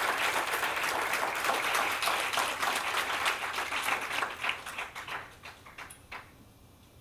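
Audience applauding, the clapping thinning out after about four seconds and dying away about six seconds in.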